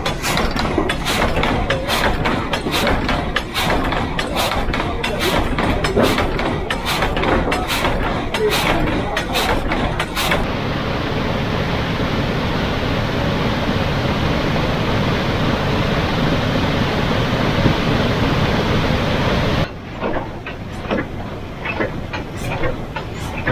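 Water-powered sawmill machinery clattering with a rhythmic knock about twice a second. Partway through the knocking gives way to a steady rushing noise for several seconds, then the knocking returns more quietly.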